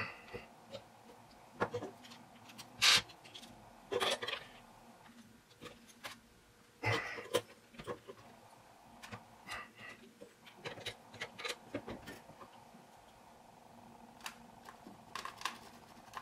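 Small screwdriver working the screws of a Zero Tolerance 0560 folding knife: scattered light clicks and taps of the bit in the screw heads and the knife shifting on the desk, with a few louder knocks. The screws are tight from the factory and are being broken loose.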